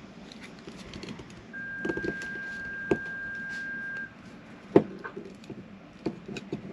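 Crimping pliers working a wire terminal: handling noise and a few sharp metal clicks, the loudest near the end, as the tool rolls the terminal's end onto the wire. A steady high tone sounds for about two and a half seconds in the middle.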